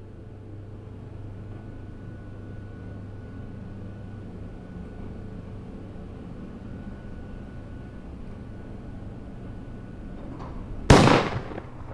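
A steady low hum, then about eleven seconds in a single sudden loud bang that dies away within about a second.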